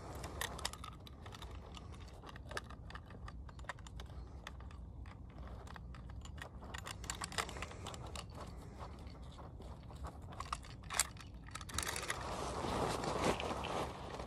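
Handling noise while a fish is being weighed in a wet weighing sling: irregular light clicks and crackles, with a denser rustle about twelve seconds in.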